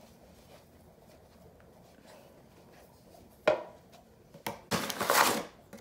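Faint handling of dough in a bowl, then a sharp knock about three and a half seconds in and a second of loud scraping, rustling clatter as more flour is scooped into the bowl.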